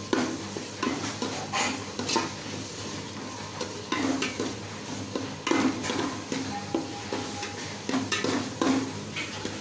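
Food sizzling as it fries in a pan, while a utensil stirs it, scraping and knocking against the pan at irregular intervals.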